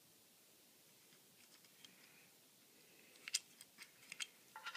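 Small metal clamp hardware being handled: a few sharp clicks and taps about three seconds in, then a brief ringing metallic clink near the end, like a washer striking the bolt.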